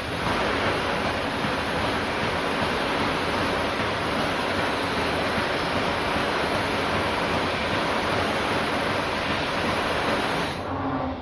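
CNC polishing machine running with a steady rushing noise, which drops off sharply near the end.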